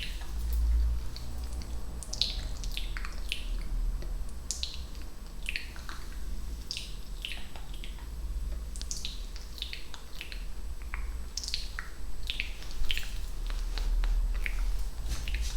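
Close-miked ASMR mouth sounds: a steady run of quick wet clicks and pops, several a second, each a short falling chirp, over a low steady hum.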